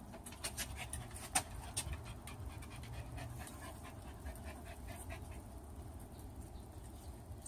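Small Yorkshire terrier panting quickly, with a run of sharp little clicks that is densest in the first two seconds and thins out by about five seconds in.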